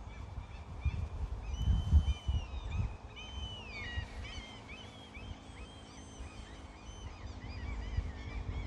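Wild birds singing and chirping: clear whistled notes, a long falling whistle about four seconds in, then quick repeated chirps. Underneath runs an irregular low rumble with thumps, loudest in the first two seconds.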